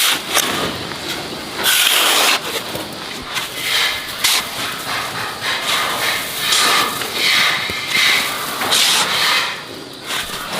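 Cut banana leaves rustling and crackling as they are handled and stacked, in a series of swishes each about half a second to a second long.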